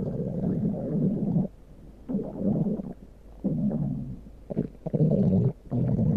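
A person's stomach growling: a run of low, gurgling rumbles, each lasting about a second with short gaps between them.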